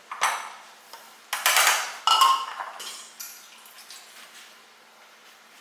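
Metal kitchen utensils clattering and clinking on a stone countertop: three sharp knocks in the first two seconds, the last ringing briefly, then only faint handling.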